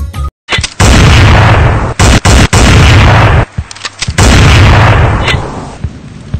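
Two loud claps of thunder, each starting abruptly and rumbling off over about two seconds, loud enough to overload the recording.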